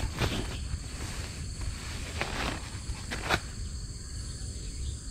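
A few soft rustles and brushes of hand movement at irregular moments, over insects droning steadily at a high pitch and a low rumble.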